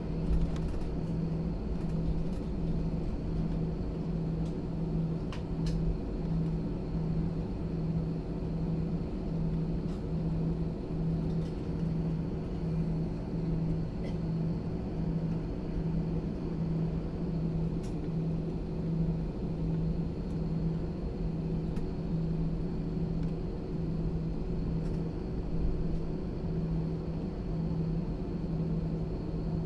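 Airbus A320 cabin noise: the jet engines and airflow make a steady low rumble with an even hum that pulses gently. It holds level, with no build-up of power.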